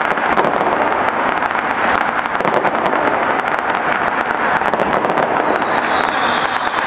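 Fireworks display: a dense, continuous crackling of many small bursts. About two-thirds of the way through, several high whistles join in, each falling in pitch.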